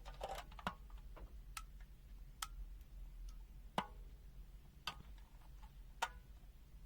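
Scattered light clicks and taps, about seven at irregular intervals, from handling a clamp meter and its test probes, over a faint low hum.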